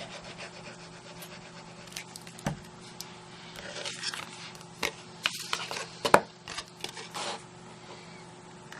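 Sponge tip of a Tombow liquid glue bottle rubbed quickly back and forth along cardstock, then the handling of card pieces: scattered taps and knocks on the work surface, the sharpest a little after six seconds in, with a dull thud about two and a half seconds in.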